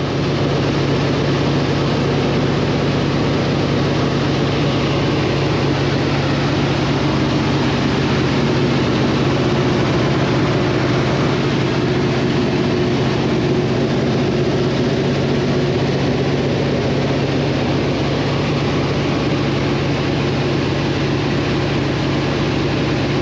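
Cabin noise of a 1967 de Havilland Beaver floatplane in cruise. Its Pratt & Whitney R-985 radial engine and propeller run steadily, giving an even roar with a constant low hum, heard from inside the cockpit.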